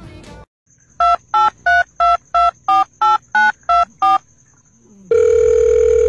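Touch-tone phone keypad dialing ten digits, about three a second, each a short two-note beep. A loud steady line tone follows for about a second near the end.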